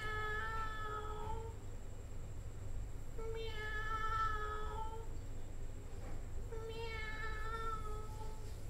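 Cat giving three long, drawn-out meows, each about a second and a half, spaced about three seconds apart.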